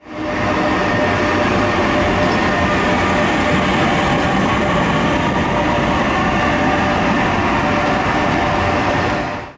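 Trenitalia electric locomotive passing close and slowly: wheel and rail noise with a steady, several-toned whine over it.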